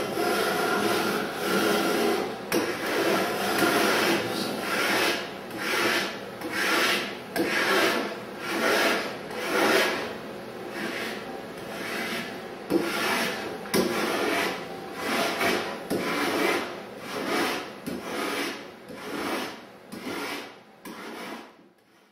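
Surform rasp scraping the wooden shaft of a Greenland paddle in repeated push strokes, about one a second, shaping it to its oval cross-section. The strokes stop shortly before the end.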